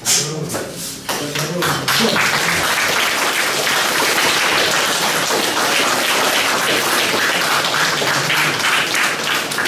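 Spectators applauding steadily, the clapping starting about two seconds in after a few voices and running on until shortly before the end.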